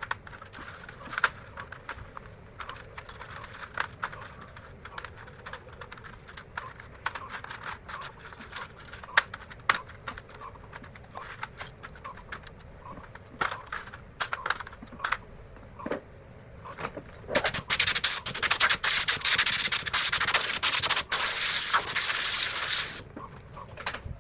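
Hand work on a workshop bench: scattered light taps and clicks, then a loud, continuous rough noise for about five seconds near the end, of the kind that abrasive rubbing or sanding makes.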